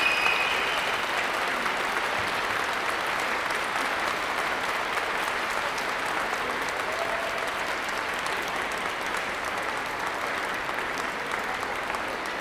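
Crowd applauding with many hands clapping, slowly dying down.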